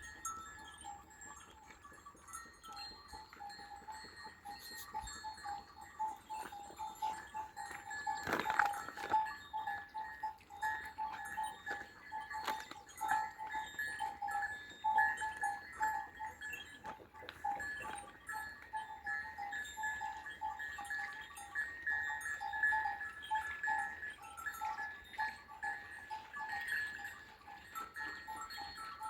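Neck bells on a flock of sheep clinking steadily and unevenly, with a couple of louder knocks about a third of the way in.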